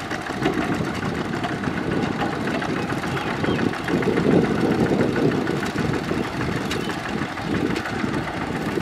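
Kubota RT120 single-cylinder diesel engine of a two-wheel walking tractor running steadily under load as it drives its cage wheels through flooded paddy mud.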